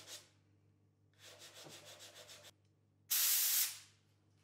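Hand sanding oak with a sanding block: quick back-and-forth rubbing strokes for about a second and a half. About three seconds in comes a short, loud hiss, the loudest sound, lasting under a second.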